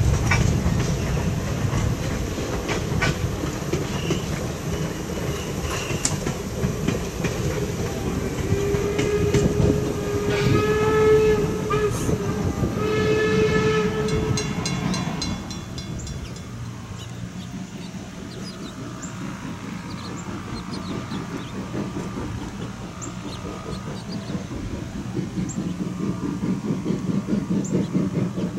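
Steam locomotive working with a heavy exhaust rumble, blowing its steam whistle in long blasts about halfway through. After that the locomotive is fainter and grows slowly louder as it approaches.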